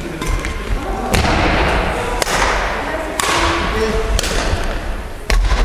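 Badminton rally: rackets strike a shuttlecock five times, about once a second, and each crisp hit rings on in the gym's echo. There are low thuds underneath, with a heavy one near the end.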